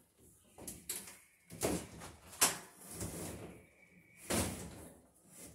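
Rubbing and scraping with a few sharp knocks as electrical cable is handled and pulled at bare wooden wall studs, with a short squeak about three and a half seconds in.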